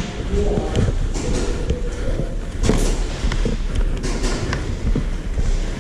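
Shuffling, clatter and scattered knocks of players moving through an indoor airsoft arena, with a steady low rumble, echoing in a large hall.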